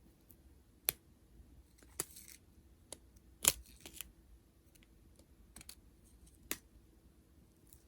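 Faint handling of small plastic bags of diamond painting drills: a few separate light clicks and taps, with one brief rustle about two seconds in and the sharpest tap about halfway through.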